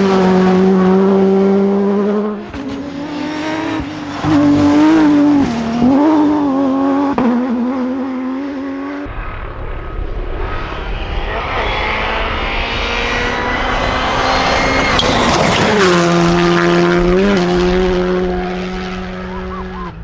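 Rally car engines at competition pace. The engine holds steady revs at first. In the middle stretch the revs rise and fall. About fifteen seconds in, pitch climbs and then drops quickly as a car goes through, before the engine settles back to a steady note.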